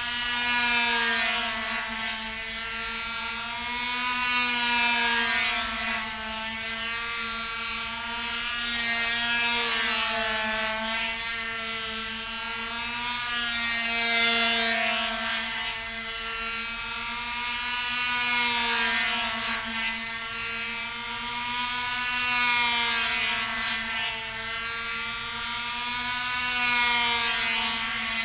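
Small Cox model-airplane engine on a control-line stunt plane, running steadily at a high buzzing pitch. Its sound swells and fades about every four seconds, with a slight rise and fall in pitch, as the plane circles the flier.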